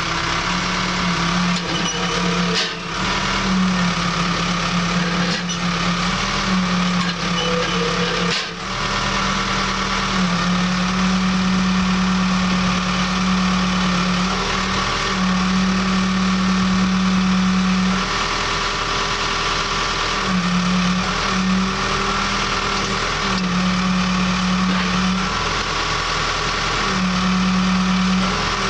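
Case skip loader's diesel engine running steadily. A low hum comes and goes in stretches of a few seconds as the hydraulics raise, lower and tilt the front box blade and its ripper teeth.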